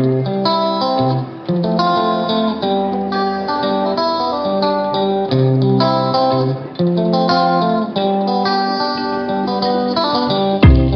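Background music: a plucked guitar tune of short, even notes, with a deep thump near the end.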